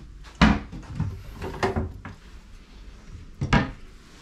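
Kitchen cabinet doors knocking shut: several sharp knocks, the loudest about half a second in and another near the end, with smaller ones between.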